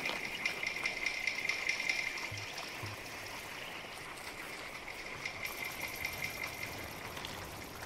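Steady bubbling and trickling of hot acid springs, a fizzing, babbling water noise that grows a little quieter after the first couple of seconds.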